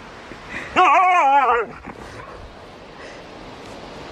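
A pet animal's drawn-out cry, about a second long, starting a little under a second in; its pitch wavers up and down several times, like a howl or yowl.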